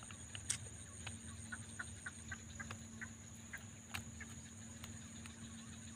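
Rural ambience: a steady high-pitched insect drone over a faint low hum, with scattered short bird calls and two sharp clicks, one about half a second in and one about four seconds in.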